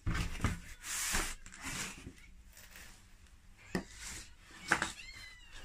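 Unpacking the wooden frame parts of a flat-pack chair from their cardboard box: rustling and scraping of cardboard as the pieces are handled, then two sharp knocks of wood about a second apart later on.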